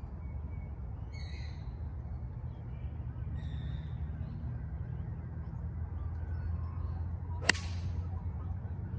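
A golf ball struck off the tee with a TaylorMade UDI 2-iron: one sharp click about seven and a half seconds in. Birds call a few times earlier.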